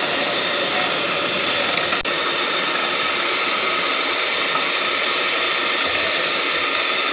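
Electric hand mixer running at a steady speed, its twin beaters whisking eggs and sugar until frothy. The sound dips for a moment about two seconds in.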